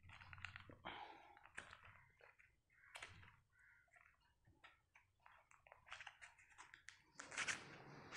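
Faint handling noises of a small cardboard product box being opened: short scrapes, clicks and rustles, with the loudest rustle about seven and a half seconds in.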